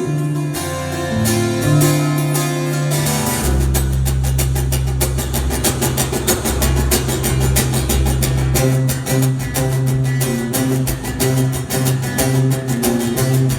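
A live rock band playing an instrumental passage led by guitar. Bass and drums come in about three seconds in and carry a steady beat to the end.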